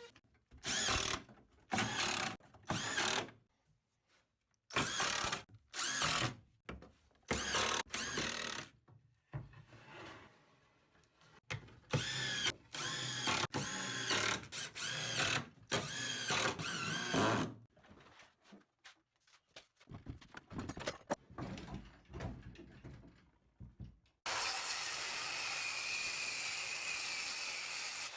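Power drill run in many short trigger bursts, its pitch rising and falling with each pull, then held for a steady run of about four seconds near the end.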